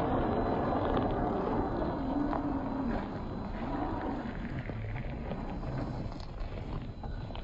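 1/10-scale RC rock crawler's 540 brushed motor and gearbox whining as it crawls over rocks, the pitch wavering up and down with the throttle, with stones crunching under the tyres and wind on the microphone.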